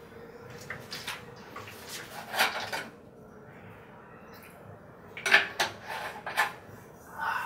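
Plastic water bottle being handled around a drink: a run of light clicks and crinkles, a quiet spell, then a second run of sharper clicks and knocks about five seconds in.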